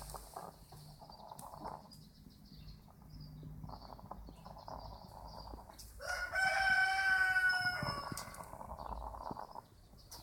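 A sleeping hen snoring: short raspy breaths repeating every second or two. Past the middle, a rooster crows once for about two seconds, the loudest sound.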